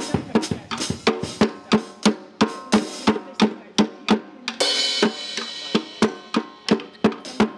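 Drum beat: sharp drum hits in a steady rhythm of about four a second, with a brief high wash, like a cymbal, about five seconds in.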